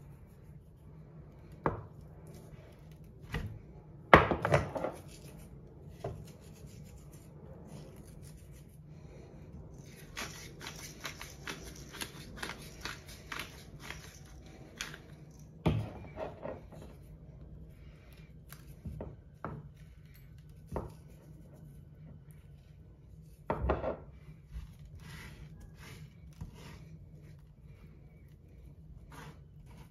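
Hands seasoning a raw dry-aged ribeye on an end-grain wooden cutting board: scattered light taps and rubbing, with a few heavier knocks on the board. A handheld spice grinder crackles in rapid fine ticks for a few seconds around the middle.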